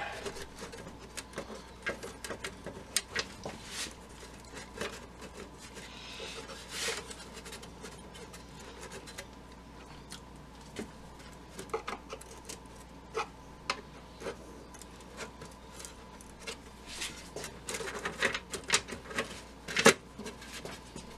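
Scattered clicks, taps and rubbing from hands handling a Zenith Trans-Oceanic radio's cabinet, trying to work its front off while something still holds it, with a cluster of sharper knocks near the end.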